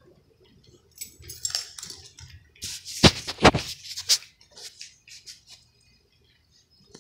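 A cat eating dry kibble from a plastic dish: a run of crunching and clinking clicks, densest and loudest about three seconds in, then trailing off.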